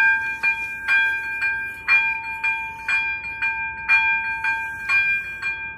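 Level-crossing warning bell ringing at a steady pace of about two strokes a second, each stroke ringing on between strikes. It is the signal that the crossing is closed for an approaching train.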